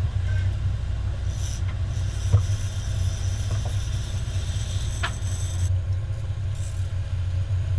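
Steady low drone of a 40-foot Cabo sportfishing boat's inboard diesel engines running under way, with a single sharp knock about two seconds in.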